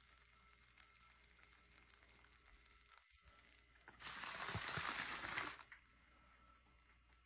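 Faint room tone, broken about four seconds in by a burst of rustling noise with a few low thumps, lasting about a second and a half.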